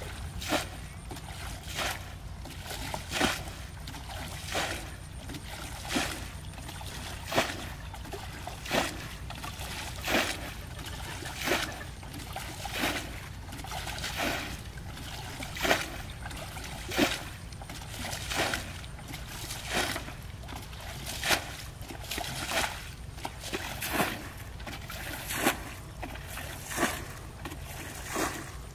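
A plastic bucket scooping water from a shallow muddy pool and flinging it out, bailing: a splash about every one and a half seconds over a steady low hum.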